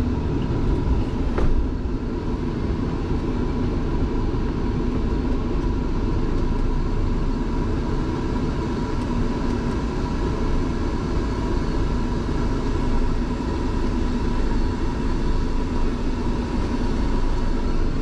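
Steady low rumble of heavy diesel trucks, heard from inside a truck cab, as a road train moves past.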